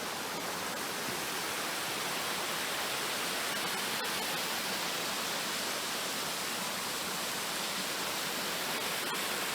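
Steady rushing of a waterfall and stream.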